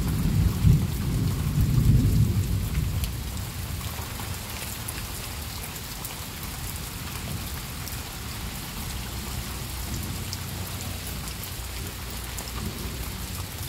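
Steady rain falling on trees and plants, with scattered individual drops ticking. Thunder rumbles for the first few seconds, then dies away.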